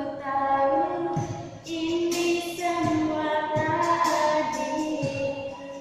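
A woman singing a slow melody in long held, sliding notes, with a few sharp percussion hits underneath.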